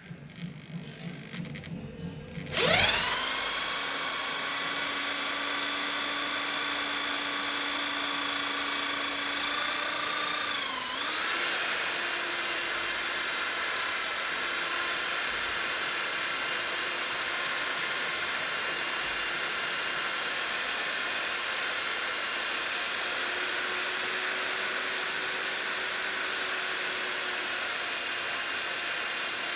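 Electric drill starting about three seconds in, quickly winding up to a steady high whine. Around eleven seconds its pitch sags briefly, then it settles back at a slightly higher speed and runs steadily, while spinning against a bar of soap to melt it by friction.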